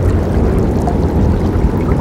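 Forest river flowing steadily: an even, continuous rush of running water, heaviest in the low end.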